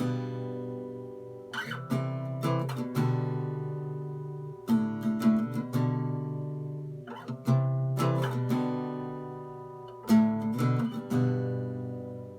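Acoustic guitar strumming chords in an instrumental break, with no singing. Short clusters of strums come about every three seconds, each chord left to ring out and fade before the next.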